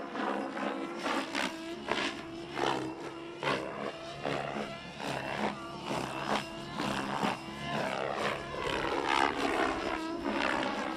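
Radio-controlled 3D helicopter flying overhead: rotor blades whooshing in repeated swells about once a second as the pitch changes, over a drive whine that slides up and down in pitch.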